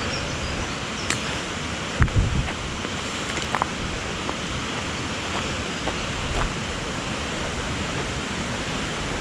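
Steady rushing noise of a waterfall and its river. A couple of low thumps about two seconds in, and a few faint clicks.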